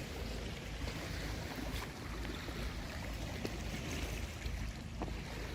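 Steady rush of a flowing creek with low wind rumble on the microphone, and a few faint clicks.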